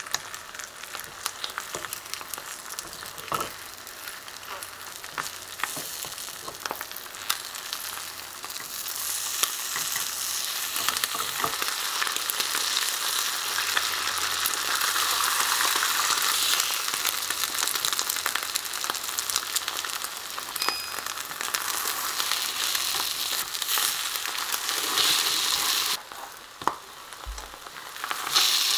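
Beaten egg sizzling in a nonstick frying pan while a cheese rolled omelette cooks, with small clicks and scrapes of a silicone spatula and chopsticks against the pan. The sizzling grows louder about a third of the way in, drops off briefly near the end, then swells again.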